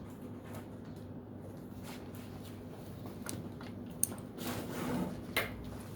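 Handling noise: light rustling and scraping, with a sharp click about four seconds in and another near the end, over a faint steady hum.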